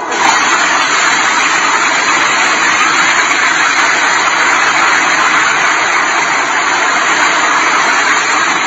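A multi-storey apartment building collapsing: a loud, even rushing noise with no separate crashes standing out, and it carries on steadily as the dust cloud spreads.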